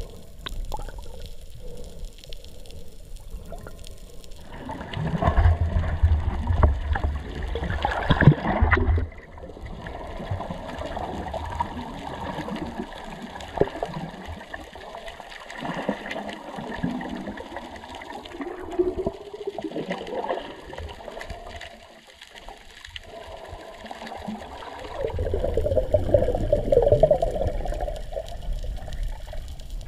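Sea water gurgling and sloshing, with two louder, splashier stretches about five seconds in and again near the end.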